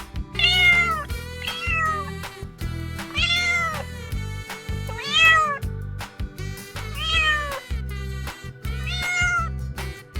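Domestic cat meowing about six times, each meow rising then falling in pitch, roughly one every two seconds, over background music with a steady beat.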